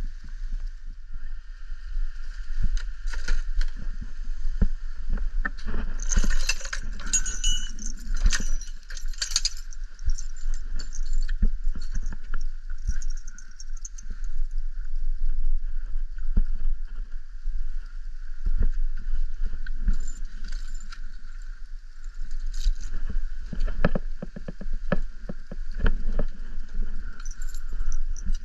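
Wind buffeting the microphone in a steady low rumble, with irregular clinks and rattles of metal buckles and straps as tree-climbing spurs are strapped onto boots; a busier burst of clatter comes about six to nine seconds in.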